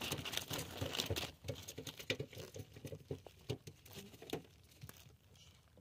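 Irregular light taps and crinkling rustle of plastic sheeting and a cloth bag being handled, fading away over the last couple of seconds.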